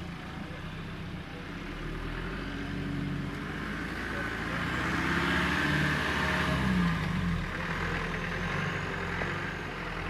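Land Rover Defender 90's engine working as it climbs out of a muddy slope and drives away, the revs building to their loudest about two-thirds of the way through, then easing off.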